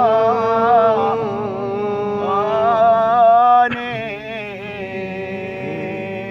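A man's solo unaccompanied chanting of a Shia mourning lament (nai), drawing out long, wavering held notes. A short click comes a little past halfway, after which the voice goes on more softly.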